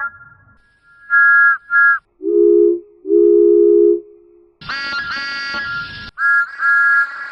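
Thomas the Tank Engine's two-note whistle, mostly a short toot then a longer one, played several times in edited versions. It comes first high, then pitched far down, then harsher and noisier, then high again near the end.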